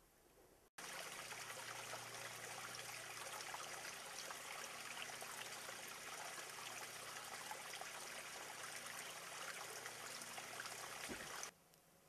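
Water trickling and running steadily, as from a small spring-fed stream; it starts abruptly about a second in and cuts off abruptly near the end.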